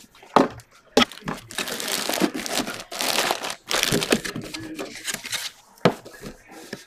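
Clear plastic bag crinkling and rustling as a jersey inside it is handled, with a few sharp knocks in between.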